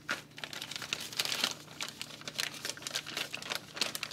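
Clear plastic parts bag crinkling and crackling in the hands as the packaging of a new vacuum cleaner belt is opened, a quick, irregular run of crackles.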